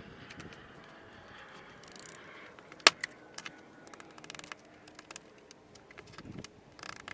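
Scattered light clicks and knocks over a faint hiss, with one sharp knock about three seconds in.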